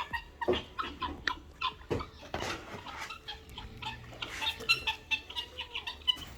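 Chickens clucking and chirping in short, scattered calls, mixed with frequent small clicks and knocks.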